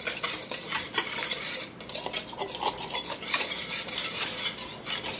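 Wire whisk beating a thin flour-and-water slurry in a stainless steel mixing bowl: quick, rhythmic clinking and scraping of the wires against the metal, which cuts off near the end.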